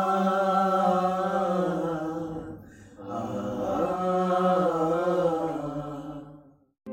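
Small mixed group of voices singing unaccompanied, holding a wordless 'aa' vocalise in two long phrases with a short break between them about two and a half seconds in. The second phrase fades out near the end.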